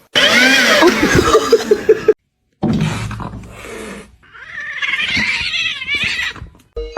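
Cat yowling: a run of loud cries that rise and fall in pitch, a brief stop about two seconds in, then a long wavering yowl.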